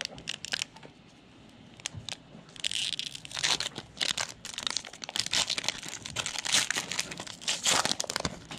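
Foil trading-card pack wrapper being torn open and crinkled. A few light clicks come first, then a dense run of crinkling and crackling from about two and a half seconds in.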